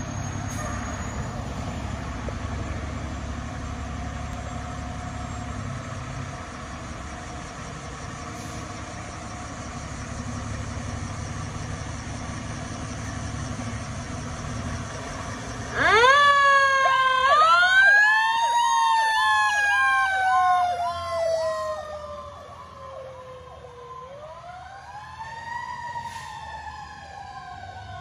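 Fire engine idling with a low rumble, then about halfway through its Federal Signal PowerCall electronic siren switches on. It wails up and slowly down twice, with a fast repeating yelp-like tone over it, about two to three pulses a second, loudest just after it starts.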